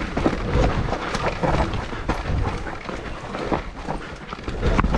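Mountain bike ridden fast down a rough trail: a constant rushing noise with heavy low rumble, and the bike knocking and rattling irregularly over bumps.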